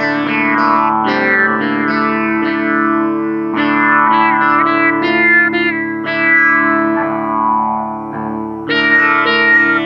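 Line 6 Variax modeling guitar on its sitar sound, tuned DADGAD: a melody of plucked notes over open strings ringing as a steady drone, with a few notes bent in pitch in the middle. The plucking thins out for a moment, then a new run of notes starts near the end.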